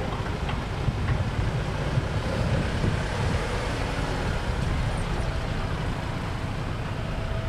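Vehicle engine idling, a steady low rumble with no change in revs.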